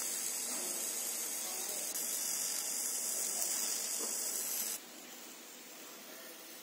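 50 W fiber laser cutting machine cutting thin gold sheet: a steady high hiss that cuts off abruptly nearly five seconds in, leaving a fainter background noise.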